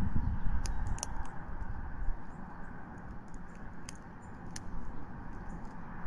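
Faint, scattered high clicks and crackles as a bald eagle tears at prey in its stick nest, over a steady outdoor hiss. A low rumble fades out in the first second or two.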